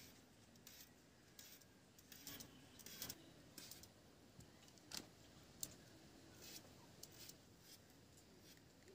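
Faint, irregular clicks and snips of a blade cutting through raw green papaya as it is sliced into small pieces.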